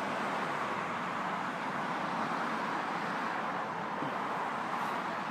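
Steady outdoor background noise, an even hiss-like rush with no distinct events, easing slightly and swelling again.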